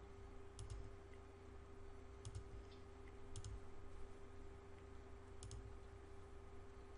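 Faint computer mouse clicks: four quick pairs of clicks spread a second or two apart, over a faint steady hum.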